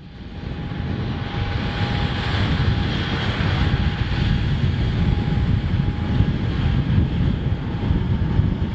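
CFM56-3 jet engines of a Boeing 737-300 running, a steady heavy rumble with a faint high whine, rising in level over the first second.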